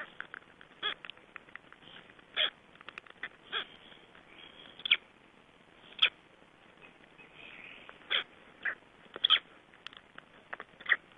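Unhatched black stork chicks calling from inside their eggs: short, sharp peeps at irregular intervals of about a second, some close together in quick pairs.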